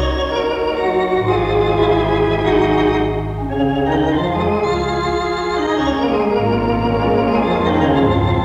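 Wurlitzer theatre organ, the 4-manual 14-rank Gaumont Manchester instrument, playing sustained chords over held pedal bass notes that change every couple of seconds. Heard as a mono 1960s off-air tape recording of a radio broadcast.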